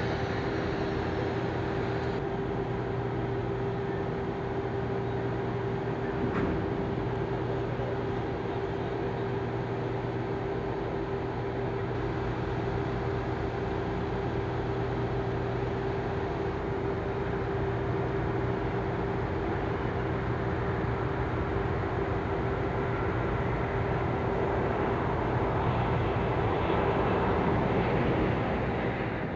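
Steady hum of airport ground machinery running at a constant speed, with a fixed low drone. A single faint knock comes about six seconds in, and the sound swells slightly near the end as a service vehicle drives past.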